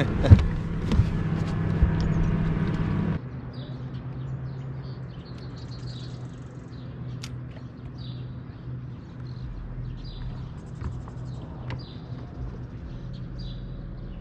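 Small birds chirping repeatedly in short, high calls over a faint steady low hum. This follows about three seconds of a louder low hum with a few sharp knocks that stop abruptly.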